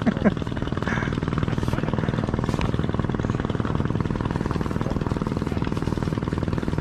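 A small engine running steadily, with a fast, even chugging pulse.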